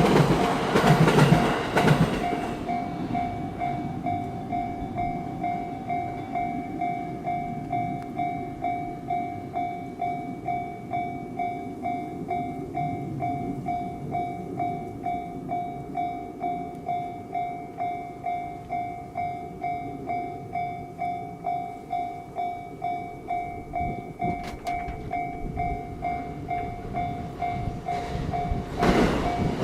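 Railroad crossing warning bell ringing in an even rhythm, about two strokes a second, while the crossing is closed. A passing train is loud for the first couple of seconds and fades out, and another train comes in loud near the end.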